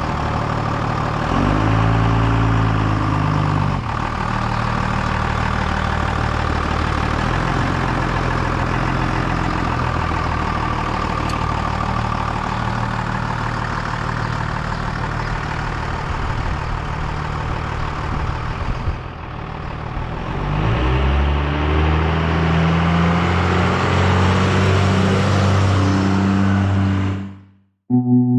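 Kubota BX compact tractor's three-cylinder diesel engine running steadily under work, revving up about a second and a half in and again near twenty seconds in, then cutting off abruptly near the end.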